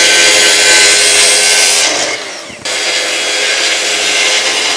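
Power saw cutting plywood, running steadily with a dense hiss of cutting, breaking off for about half a second midway and then carrying on.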